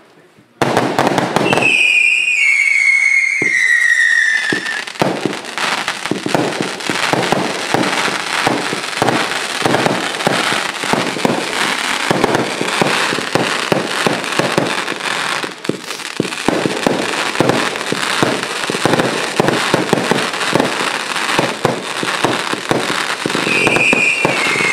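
Fireworks going off: a whistle gliding down in pitch a couple of seconds in, then a long run of rapid bangs and crackling, with another falling whistle near the end.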